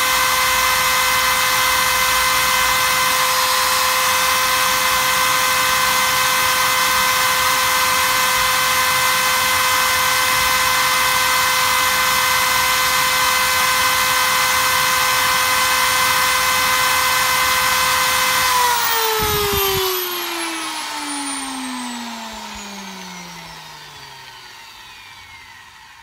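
Lathe motor running at a steady speed with an even whine, then switched off about 18 seconds in and spinning down, the whine falling steadily in pitch and fading.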